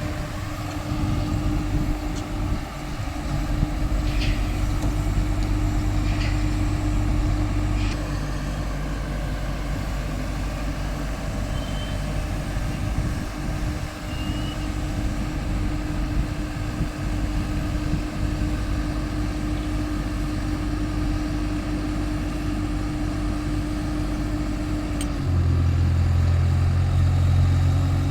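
Caterpillar excavator's diesel engine running steadily with a steady whine over it, and a few short clanks in the first several seconds. About 25 seconds in the whine stops and the engine note grows louder, as under heavier load.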